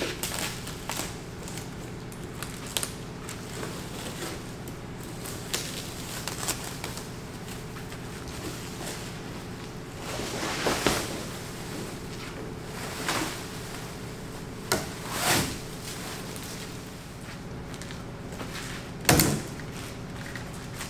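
Plastic stretch wrap being torn and pulled off a cardboard box: rustling and crinkling, with several louder rips and crackles in the second half. A sharp thump comes near the end, over a steady low hum.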